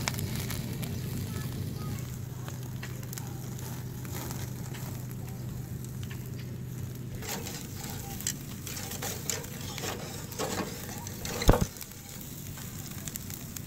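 Whole catfish grilling over charcoal: sizzling with scattered sharp crackles of the burning coals. A steady low hum stops about halfway, and one sharp knock near the end is the loudest sound.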